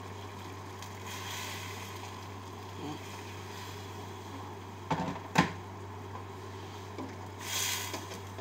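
Hot water poured from a jug into a stainless steel pot of chicken stew, a soft splashing about a second in, then two sharp knocks of a plastic slotted spoon against the pot about five seconds in and a short hiss of stirring near the end, over a steady low hum.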